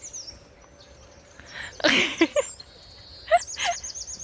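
Small birds chirping, with a fast high trill near the end. A short, loud voiced cry about two seconds in and two brief rising yelps a little after three seconds cut across the birdsong.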